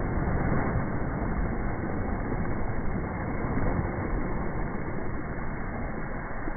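Wind buffeting the microphone, with small waves breaking and washing up a sandy shore. The noise is steady, with uneven low gusts.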